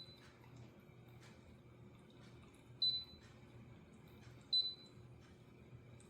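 Cool mist humidifier running with a faint steady hum. Three short high pings that fade quickly stand out above it: one right at the start, then two more about three and four and a half seconds in.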